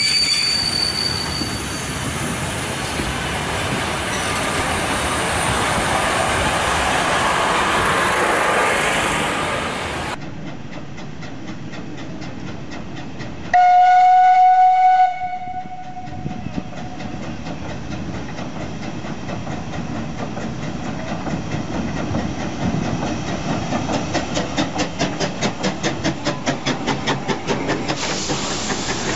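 A museum train of coaches rolling past with steady rail noise. Then a steam tank locomotive gives one loud whistle blast lasting about a second and a half, and its exhaust beats follow as it draws near and passes, a steady chuffing of about four beats a second near the end.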